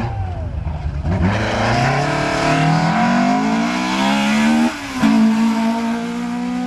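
Rally car engine accelerating hard past, its revs climbing for about three and a half seconds. There is a sharp, brief drop at a gear change, then the engine holds high revs as the car pulls away.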